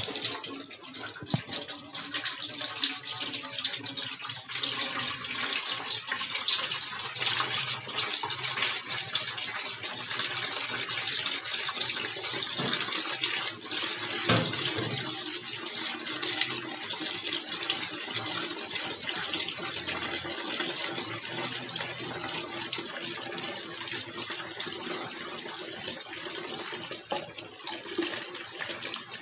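Steady stream of cooking oil running from a centrifugal oil filter, an even rushing hiss like a tap running, with a faint machine hum underneath. One knock about halfway through.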